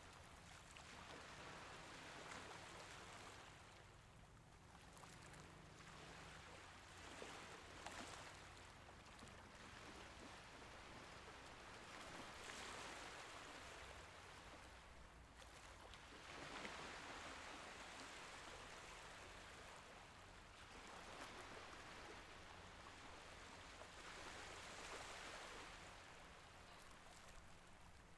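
Faint sea waves washing in and drawing back, swelling and fading every four seconds or so.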